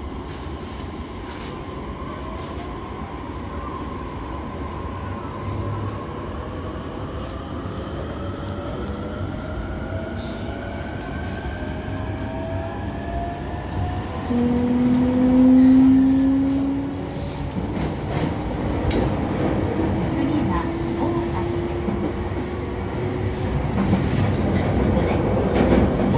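E233-3000 series electric train gathering speed: its traction motor whine rises steadily in pitch over running noise. About fifteen seconds in, a louder steady tone sounds for a few seconds, and wheel clicks over rail joints and rumble follow as the train runs on.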